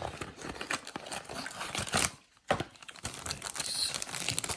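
Blind-box packaging being handled and opened, with crinkling and some tearing that stops briefly about two and a half seconds in.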